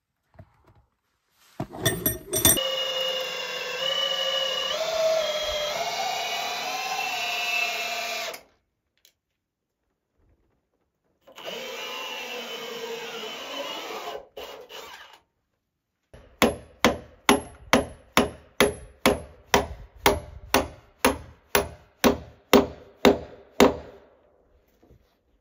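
A cordless drill with an auger bit boring through a ledger board into a log wall, running in two stretches with its motor pitch wavering under load. Then about twenty hammer blows, roughly two and a half a second, driving a half-inch galvanized bolt into the log.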